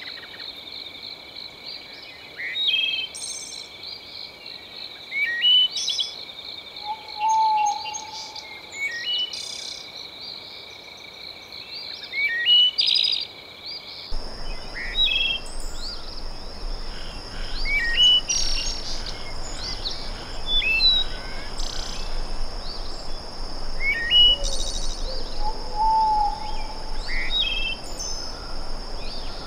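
Layered night-time nature soundscape: continuous high insect trilling with many short bird chirps over it, and a brief low hooting call twice. About halfway through the bed changes abruptly: the trills jump to a higher pitch and a soft rushing hiss comes up underneath.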